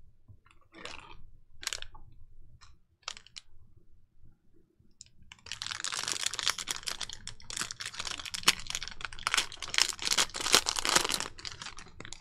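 Football trading cards and a plastic cello-pack wrapper being handled: a few short swishes, then from about five seconds in some six seconds of dense, rapid crinkling and clicking.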